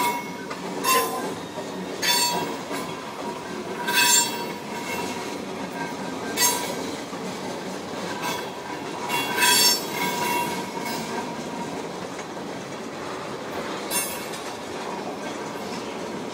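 Freight train of railroad tank cars rolling past: a steady rumble of steel wheels on rail with a faint steady squeal. Brief, loud, high-pitched wheel squeals come every second or two, then grow fewer and quieter in the last few seconds.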